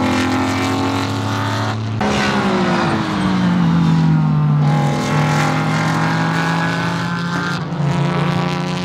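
Several GT4 race cars running hard past the track edge, their engines overlapping; about two seconds in the sound changes abruptly to another group, whose engine notes fall in pitch as they go by, then run on steadily.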